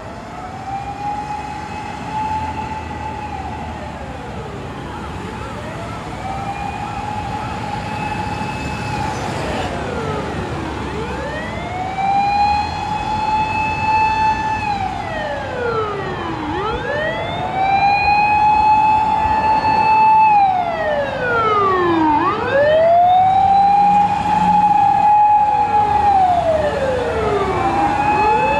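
Fire engines' Whelen electronic sirens wailing: each cycle rises, holds its top pitch for about two seconds, then falls, repeating roughly every five seconds. A second siren overlaps out of step in the second half, and the sound grows steadily louder as the trucks approach.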